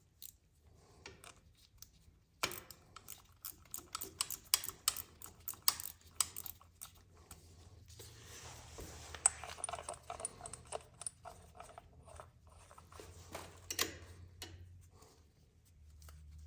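Ratcheting wrench clicking in quick runs with short pauses as the transmission filter cover bolts are run in and tightened.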